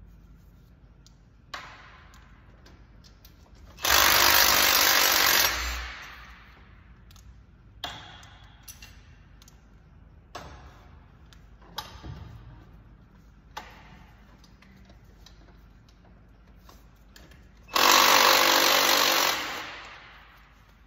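Impact wrench run in two bursts of about a second and a half each, a few seconds in and again near the end, working fasteners in a Mazda Miata's engine bay. Between the bursts come short metallic clicks and knocks of tools and parts.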